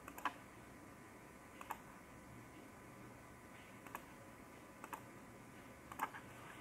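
Computer mouse left button clicking about seven times at irregular intervals, some clicks coming in quick pairs, over a faint steady hiss.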